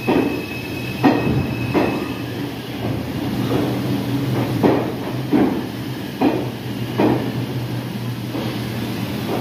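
New York City Subway train running, heard from inside the car: a steady low hum with its wheels clacking over rail joints, the clacks often coming in pairs.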